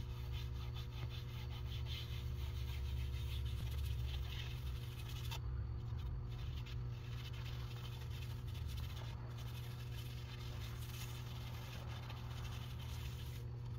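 A white Scotch-Brite pad scrubbing oil into a walnut clock face: a soft, scratchy rubbing, with a short break about five and a half seconds in. A steady low hum runs underneath.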